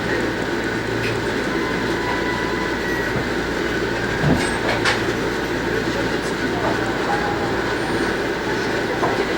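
Cabin noise inside a stopped E217-series commuter train: a steady hum with a couple of sharp clicks about four and five seconds in.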